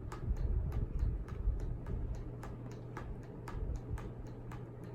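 A run of light taps, about three a second and not quite evenly spaced, over a faint steady low hum.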